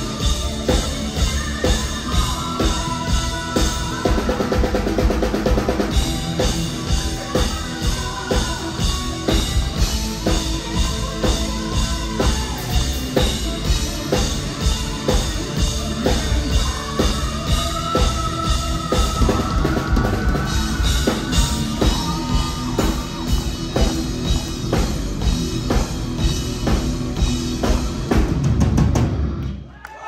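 Live heavy metal band playing loud: a fast, steady drum-kit beat under distorted guitars and bass, with a melodic lead line over the top. The music stops suddenly near the end.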